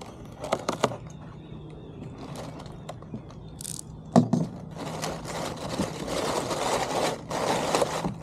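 Long cardboard box being cut open with a knife and pulled apart: a few clicks early on, a sharp knock about four seconds in, then steady scraping and rustling of cardboard and packing.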